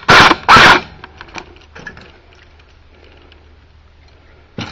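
JG 614 airsoft gun firing two loud shots about half a second apart into an aluminium soda can. Faint clicks and rattling follow, with one sharper click near the end.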